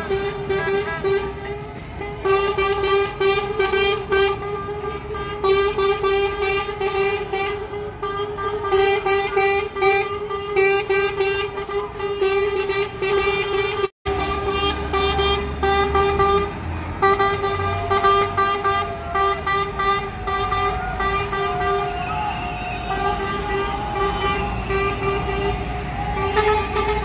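Vehicle horns sounding almost without pause on one steady note, over the rumble of truck engines and passing traffic. The sound drops out for an instant about halfway through.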